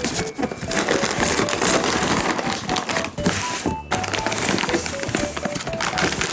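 A plastic cat-food bag crinkling as it is pulled out of a cardboard box, over light background music of short plucked notes.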